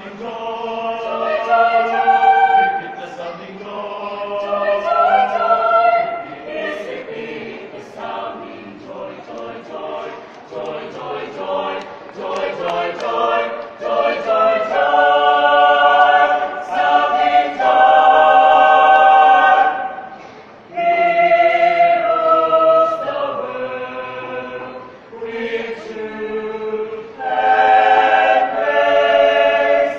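Choir singing sustained chords in harmony, phrase after phrase swelling louder and easing off, with brief breaths between phrases about twenty and twenty-five seconds in.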